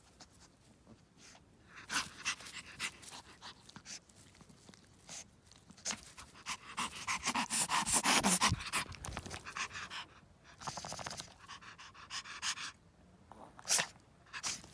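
Petit Brabançon dog panting in quick breaths, in spells that are loudest about halfway through. A single sharp click near the end.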